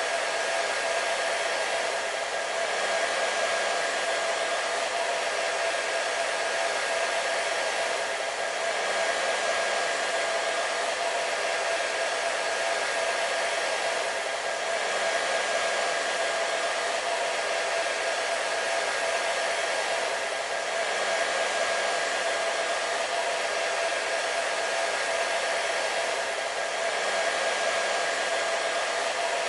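Hair dryer running continuously: a steady rush of blown air with a steady motor whine through it, swelling gently in level about every six seconds.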